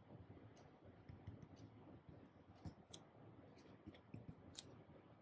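Faint, scattered taps and clicks of a stylus writing on a tablet screen.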